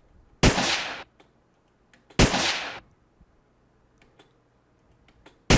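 Gunshot sound effect played back three times: each a sharp crack with a short fading tail, the first two under two seconds apart and the third about three seconds later. Faint mouse clicks between the shots.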